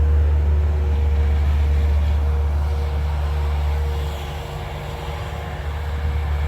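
A motor vehicle running: a steady low rumble with a faint steady whine over it, the rumble easing off about four seconds in.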